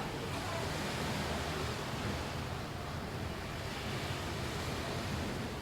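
Ocean surf washing onto a beach: a steady hiss of waves, swelling and easing gently.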